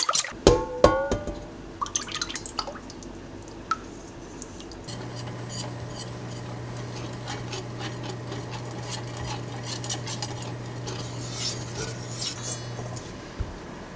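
Wire whisk stirring thin buckwheat starch batter, clicking against a stainless steel bowl and then tapping and scraping lightly around a metal saucepan. From about five seconds in until near the end, a steady low hum runs underneath, from the induction cooktop heating the pot.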